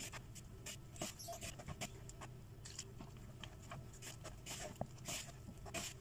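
Hands kneading flour dough in a plastic bowl: irregular soft rustling and scraping of fingers against the flour and the bowl's sides. A faint steady low hum sits underneath.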